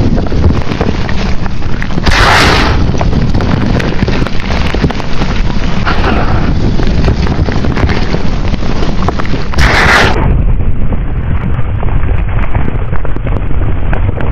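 Blocks of gym chalk crushed and crumbled by hand close to the microphone: a dense, continuous crackling crunch, with two sharper, louder crunches about two seconds in and again near ten seconds.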